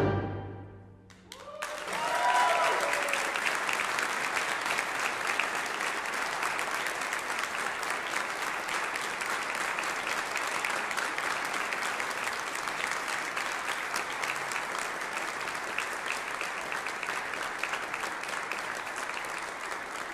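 The last of a concert band's final chord dies away and there is a moment of quiet. Then the audience breaks into steady applause, with a few whoops and cheers in the first seconds.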